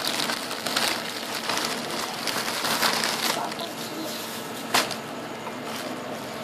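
Thin plastic carrier bags and bread wrappers rustling and crinkling as they are handled and opened, with one sharp click about three-quarters through.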